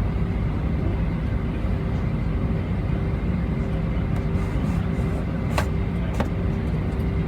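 Steady drone of an Airbus jet airliner's engines and airflow heard from inside the passenger cabin, with a steady hum running through it. Two sharp clicks, about half a second apart, sound near the end.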